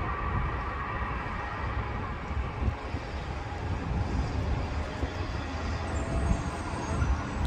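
Learjet 60XR's turbofan engines running: a steady, uneven low rumble with a faint high whine in the first few seconds.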